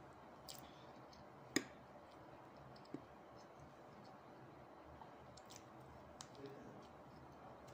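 Quiet close-up eating sounds from a crumb-coated fried roll: a few sharp clicks, the loudest about a second and a half in. Smaller clicks come near the end as the roll is bitten.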